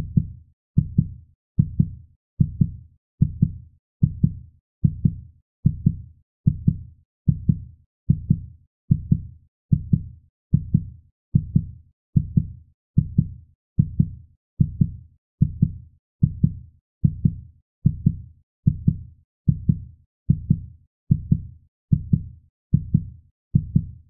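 Heartbeat sound effect: low, muffled double thumps (lub-dub) repeating at an even, steady pace, a little more than one beat a second.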